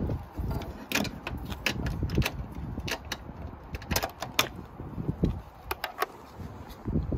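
Scattered sharp clicks and rattles of plastic mirror parts and a wiring connector being handled and pulled through a car door's wing-mirror mount.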